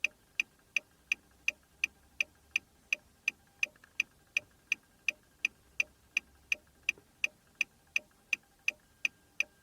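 Car hazard-light flasher ticking steadily, about three clicks a second, as the hazard warning lights blink on and off.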